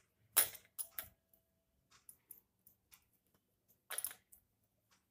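Metal knitting needles clicking and scraping against each other as plain knit stitches are worked in wool: scattered soft clicks, the loudest about half a second in, a couple more around a second, and a short cluster near four seconds.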